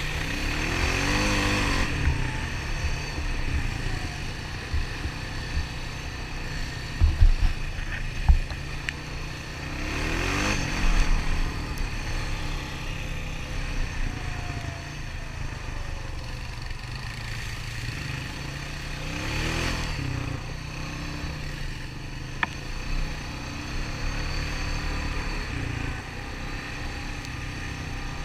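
Honda ATV engine running along a trail, climbing and dropping in pitch three times as it accelerates and eases off. A few sharp low thumps come about seven and eight seconds in.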